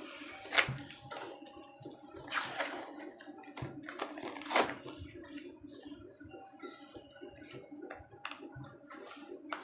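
Packaging being worked open by hand: rustling with several sharp crackles and rips, the loudest about half a second in and about four and a half seconds in.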